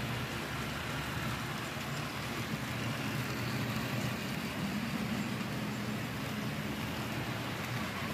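HO-scale model passenger trains running past: a steady rumble of wheels on the track with the low hum of the locomotive motors, a little louder around the middle as the cars go by close.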